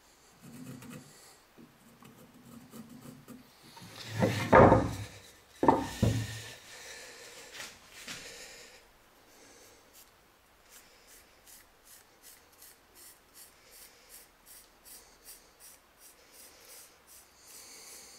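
Pencil scratching on a laminated wooden blank, drawing a curve in short repeated strokes, about three a second, through the second half. Before that, about four and six seconds in, the wooden pieces knock and rub loudly as they are picked up and handled.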